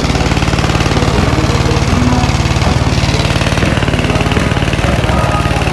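Car audio subwoofers playing very deep bass from a song at high volume, heard as a loud, steady, buzzing low drone that pulses quickly and evenly. The subwoofers are being broken in on low power.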